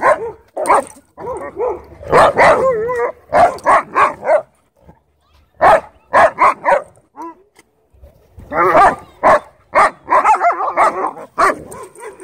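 A wolf dog and a husky–German shepherd mix play-fighting: barks, yips and wavering whine-growls in quick clusters, with a short lull about halfway through.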